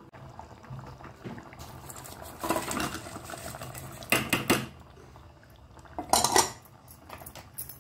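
Steel bowl and metal ladle clattering against a steel cooking pot as lumps of jaggery are tipped and scraped into a thick curry, in three short bouts of clinks and scrapes about one and a half seconds apart, over a low steady hum.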